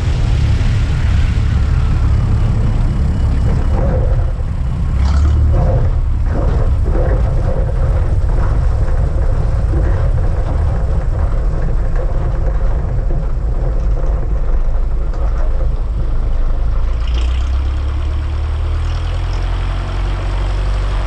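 Single-engine light propeller plane's piston engine running as the plane passes low over the runway and then rolls along the grass strip: a steady, loud, mostly low rumble.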